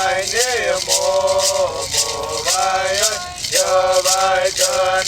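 A single voice chanting in long held, wavering tones, in the manner of a Hawaiian chant. A hand rattle is shaken in a steady beat of about three shakes a second.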